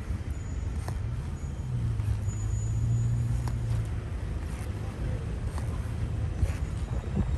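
Motorcycle being ridden: engine and road noise, with a steadier, louder engine tone about two seconds in that holds for a couple of seconds.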